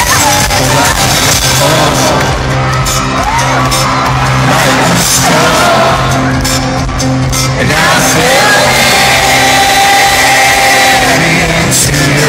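A live folk-rock band playing loudly through an arena sound system, with held bass notes under the full band. Crowd voices whoop and sing along over the music.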